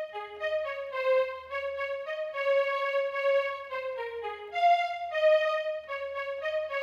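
Electronic keyboard playing a slow single-note melody, one key at a time, each note held steady until the next.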